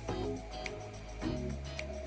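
Background music: pitched notes changing about every half second over a steady bass, with a light click about once a second.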